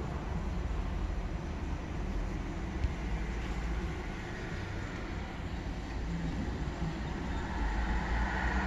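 Steady low background rumble with a fainter hiss above it, without distinct events.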